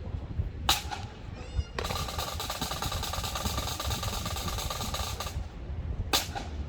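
Snare drum roll of about three and a half seconds that stops abruptly, with a sharp crack shortly before it and another after it.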